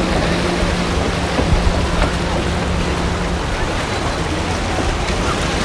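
Jet ski engine running with a steady hum as it speeds across the inlet, ending about three and a half seconds in, over a continuous wash of waves on rocks.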